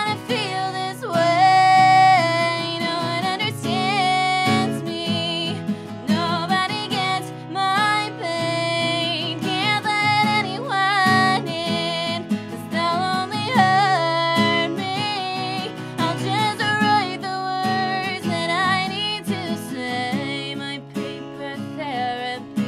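A woman singing a song while strumming an acoustic guitar.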